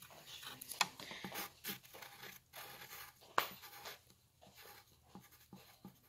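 A pen or pencil scratching on paper in short, irregular strokes while a picture is drawn, with a couple of sharper taps, about a second in and again past the middle.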